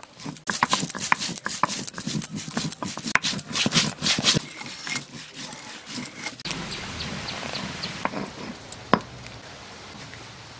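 Stone pestle pounding spices on a wooden block: rapid, irregular knocks for the first few seconds, then only an occasional knock.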